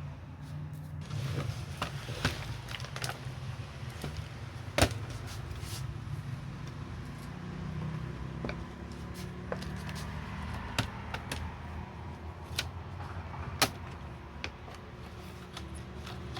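Irregular sharp clicks and taps of hand tools and plastic laptop parts being handled during disassembly, over a steady low hum. The loudest click comes about five seconds in.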